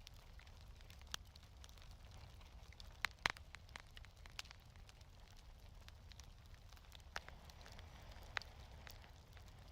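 Wood fire in a fireplace crackling softly, with a few scattered sharp pops, the loudest pair about three seconds in, over a faint steady low rumble.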